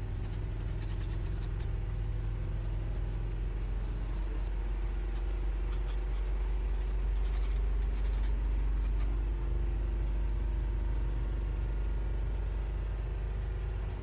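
Graphite pencil scratching lightly on sketchbook paper in short, intermittent strokes, over a steady low hum.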